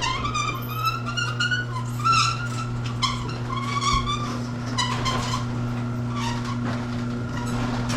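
Garage door squeaking as it moves: repeated high squeaks that waver in pitch over a steady hum, easing off after about five seconds. The squeak comes from the door's spring, not the rollers.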